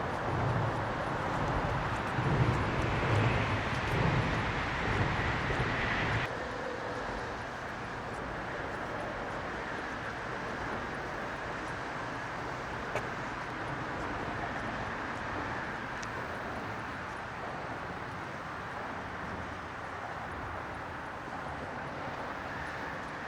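Steady outdoor background noise, with a louder low rumble for about the first six seconds that cuts off abruptly, and one faint click about halfway through.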